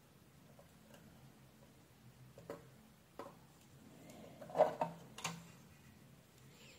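Metal tweezers and a soldering iron handling a small circuit board: a handful of light clicks and taps, the loudest a little after the middle, over a faint steady hum.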